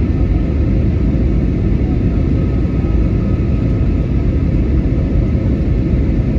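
Steady, loud low rumble of an airliner heard from inside the cabin: engine and wheel noise as the plane rolls on the ground after landing.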